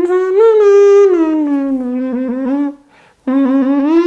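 A beatboxer hums a tune with his voice: sustained notes that step up and down in pitch. The tune breaks off for a moment near the end, then starts again.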